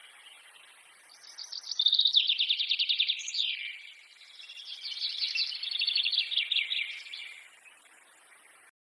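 A songbird singing two long, fast trills of rapidly repeated high notes, each lasting two to three seconds, the first louder. Faint forest background between them, and the sound cuts out to silence for a moment near the end.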